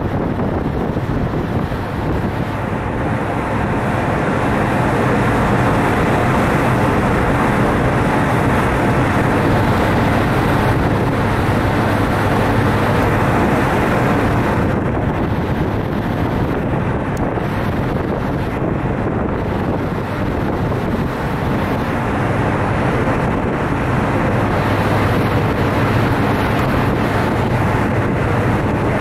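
Wind rushing over the microphone on a car ferry's open deck while under way, over the steady low drone of the ferry's engines.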